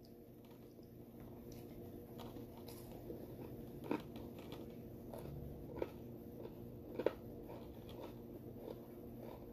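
Quiet chewing of a burger and tater tots, with scattered soft mouth clicks and smacks, the clearest about 4, 6 and 7 seconds in, over a faint steady hum.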